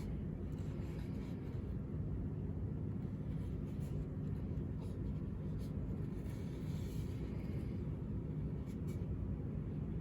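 Steady low room hum with a faint constant tone, and a few faint scrapes and clicks scattered through it, such as a model base being slid and turned on a tabletop.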